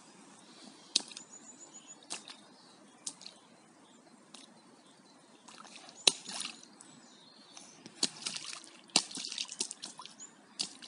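A child splashing in shallow water: separate drips and splashes about a second apart at first, then quicker clusters of splashing in the second half.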